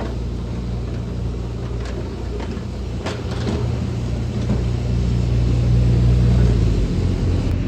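An engine running steadily with a low note, with a few light knocks; about seven seconds in its note changes to a pulsing beat.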